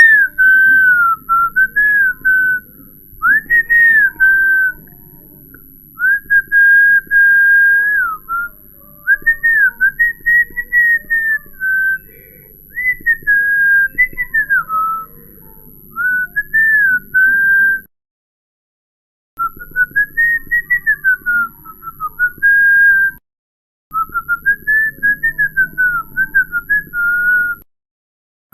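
A person whistling a wandering, tune-like line in short phrases, the pitch gliding up and down with quick trills, broken by brief pauses and two short drop-outs to silence.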